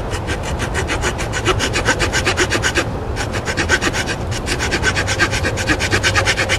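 Auger bit turned by hand, boring down into a log: a rapid, even rasping of the bit cutting wood, about six strokes a second, with a short pause about three seconds in.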